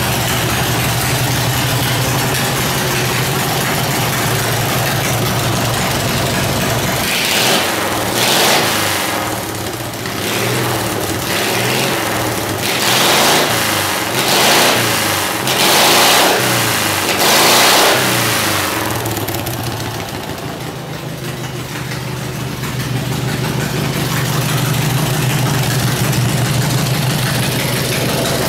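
Briggs & Stratton twin-cylinder lawnmower engine running steadily, then blipped up in about five revs in the middle, dropping back and settling into a steady idle near the end.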